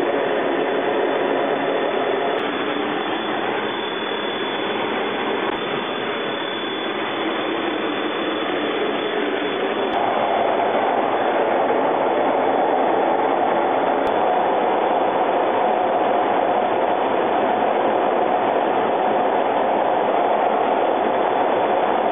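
Steady rush of engine and airflow noise inside a jet fighter's cockpit in flight. About ten seconds in it turns slightly louder and higher in pitch.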